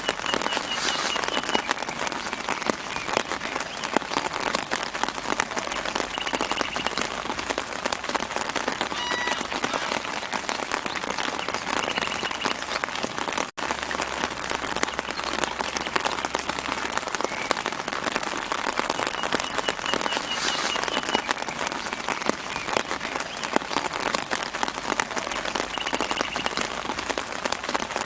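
Steady soft rain pattering on leaves, with short bird chirps heard faintly several times. The sound cuts out for an instant about halfway through.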